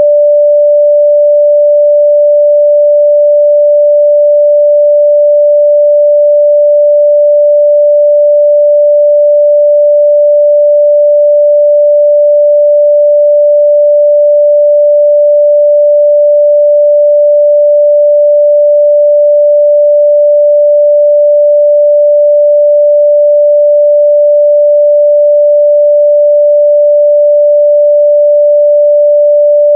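A steady, loud 588 Hz sine-wave test tone, a single pure pitch held without change.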